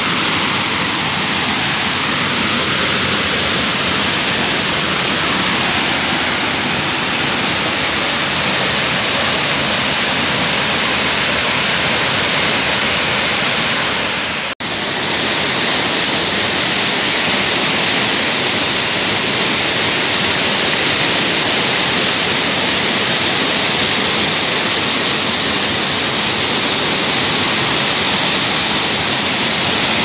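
Steady rush of a waterfall, water pouring over rock into a pool. About halfway through it cuts out for an instant, then comes back with a brighter hiss.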